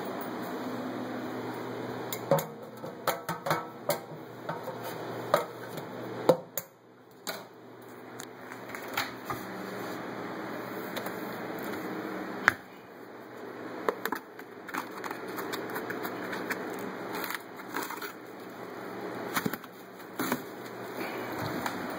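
Scattered clicks and knocks of plastic containers and household objects being moved and handled, with a single sharp knock about halfway through, over a steady low hum.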